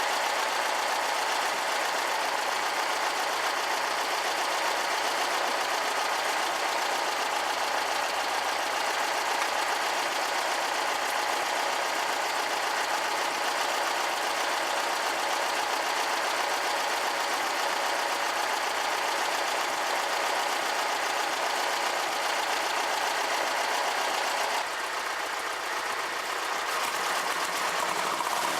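Air-cooled VW flat-four engine of a Karmann Ghia running steadily at idle, its sound changing slightly near the end.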